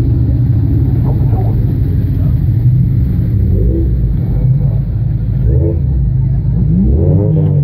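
Car engines running close by, a steady deep rumble, with one engine revving up briefly about seven seconds in.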